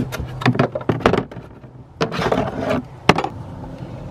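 Screwdriver prying a small rubber plug out of the plastic access hole for the spare-tire release in the cargo floor. A quick run of sharp clicks and scrapes in the first second, a rustling scrape around two seconds in, and one sharp click a second later.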